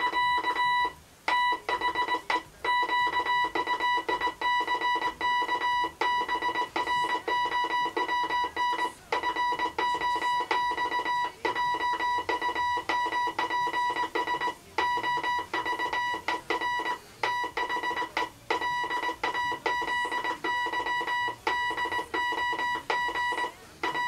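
Hand-sent Morse code: a steady electronic tone keyed on and off in dots and dashes by a 1928 Elliott Brothers mahogany-and-brass straight key, spelling out 'the quick brown fox jumps over the lazy dog' as words, with short gaps between them.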